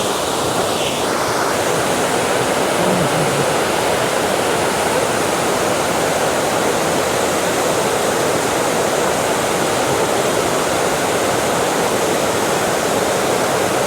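Waterfall pouring steadily: a constant rushing noise, close and loud, with no breaks.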